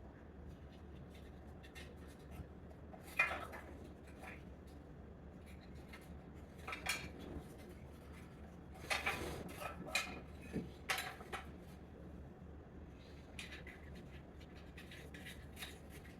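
Scattered metallic clinks and clatters, loudest in a cluster a little past the middle, as metal brackets, nuts and hand tools are handled and set down.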